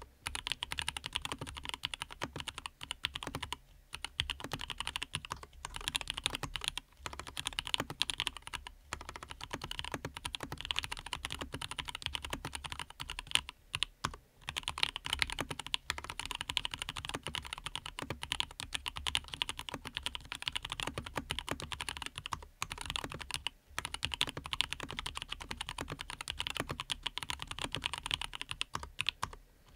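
Custom Dreadnought mechanical keyboard typed on steadily: quick, dense key clacks from lubed Everglide Aqua King linear switches, with a few short breaks in the typing.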